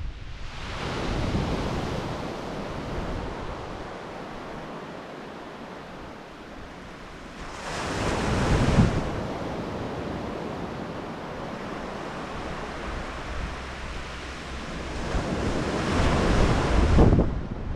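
Sea waves breaking and washing up a sandy beach, in three surges about seven seconds apart, the last two loudest, with wind buffeting the microphone.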